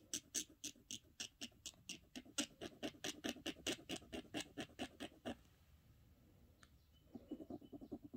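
A metal earring post scraped back and forth on a black jeweler's testing stone, leaving a streak for a sterling silver test. It makes a rapid, rhythmic scratching of about five strokes a second, pauses briefly a little past the middle, then starts again with faster, softer strokes near the end.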